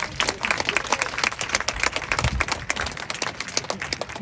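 A crowd of spectators applauding: many hands clapping in a dense, steady patter.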